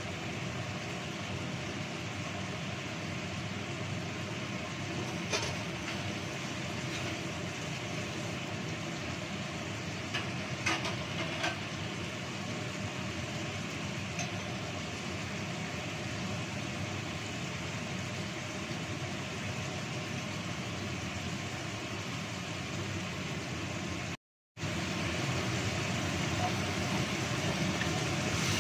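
Spice paste simmering in a wok on the stove: a steady sizzling hiss with a few small pops from the bubbling paste. The sound drops out for a moment near the end.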